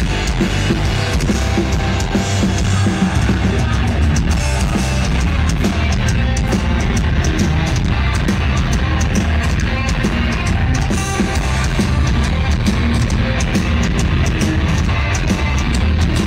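Live hard-rock band playing electric guitars and a drum kit through a festival PA, heard from the crowd.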